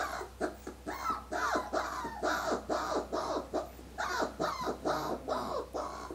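Brindle whippet puppy screaming: an unbroken run of short, high yelping cries, about three a second, each bending down in pitch.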